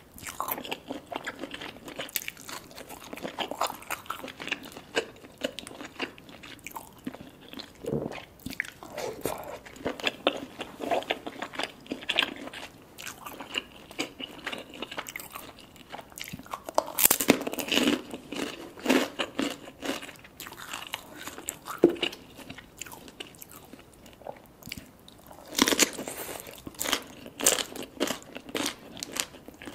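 Close-miked eating sounds: a person chewing and crunching on lobster claw meat and shredded green papaya salad, with wet mouth sounds and irregular crisp bites. The crunching grows louder about midway and again near the end.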